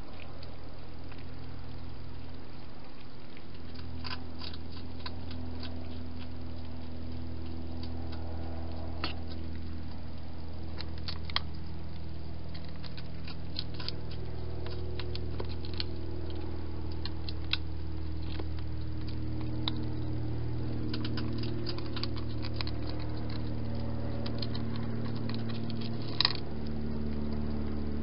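Cat crunching dry food from a dish: irregular small clicks and crunches over a steady low hum, with one louder click about 26 seconds in.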